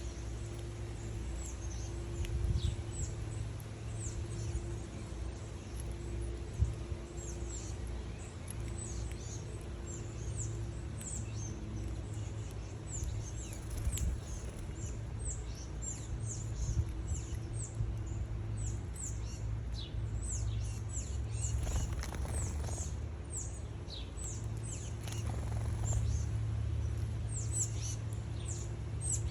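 Small birds chirping at a feeder: many short, high, falling chirps in quick succession, growing busier in the second half, over a steady low rumble.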